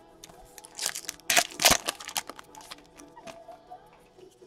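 Trading cards rustling and sliding against each other as they are flipped through by hand, with a quick run of louder rustles from about one to two seconds in and a few light clicks around them.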